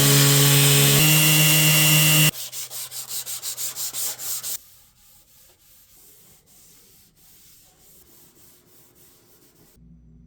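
Sanding on wood: a power sander runs loudly with a steady hum for about two seconds, then rhythmic rubbing strokes follow, about five a second. About four and a half seconds in, the sound drops to a faint ticking.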